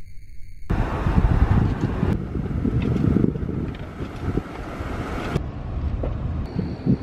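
Wind buffeting the microphone during a thunderstorm: a loud low rumbling roar that starts abruptly about a second in and drops back somewhat around five seconds in.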